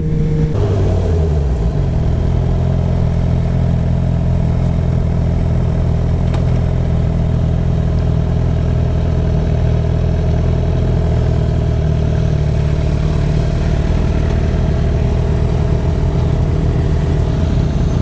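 Sport motorcycle engine running at low, steady revs as the bike rolls slowly, its pitch dropping in the first second as it slows and then holding level.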